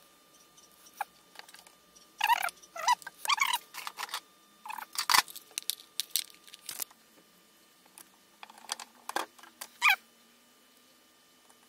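Metal tool parts being handled on a workbench: the armature of an angle grinder and a micrometer. Short bursts of clinking, rattling and scraping come with a sharp click about five seconds in.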